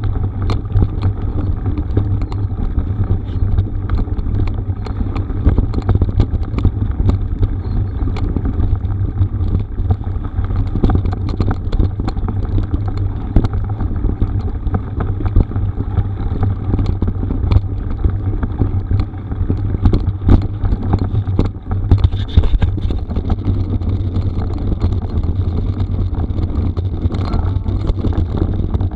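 Wind buffeting a moving camera's microphone in a heavy, steady low rumble, with a constant scatter of sharp clicks and rattles from a mountain bike riding over a rough gravel forest road.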